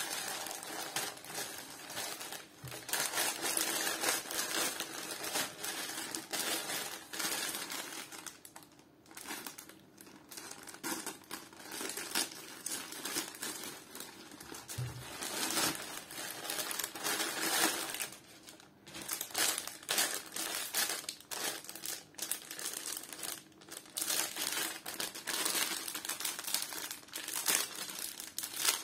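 Plastic postal mailer bag and a clear plastic bag crinkling and rustling as they are handled and opened, loud and irregular, coming and going.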